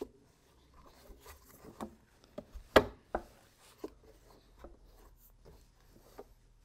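Reinforcement tabs of a tackle crate clicking into place as the crate is pressed and turned, with scattered light clicks and knocks of the crate being handled. The loudest snap comes about three seconds in.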